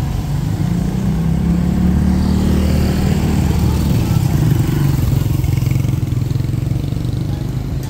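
Street traffic: a motor vehicle's engine running close by, steady and loud, slightly louder around the middle.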